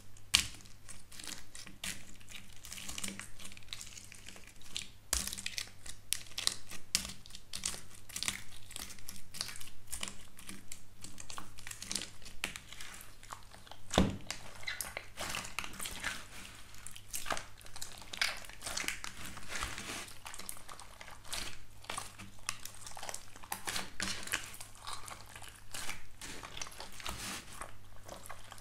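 Hands poking and kneading slime topped with a crisp black-and-white layer that cracks into pieces, giving a dense, irregular crackling and crinkling with small pops, and one sharper snap about halfway through.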